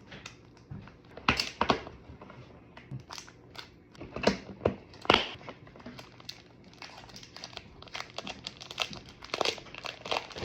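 Irregular sharp plastic clicks and crinkles from a new speed cube and its plastic packaging being handled, getting busier in the second half.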